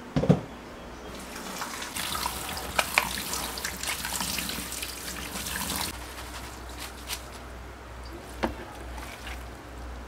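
Water running from a kitchen tap into a sink, strongest for a few seconds in the middle, with sharp clinks and knocks of things being handled in the sink. A heavy thud comes right at the start.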